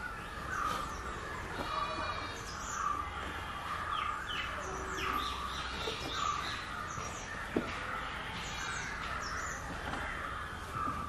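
Crows cawing over and over, with small birds chirping and twittering at a higher pitch.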